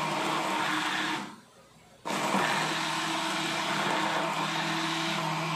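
Handheld stick blender running in a jug of carrot juice, blending carrots. It winds down about a second in, pauses briefly, then starts again abruptly and runs steadily.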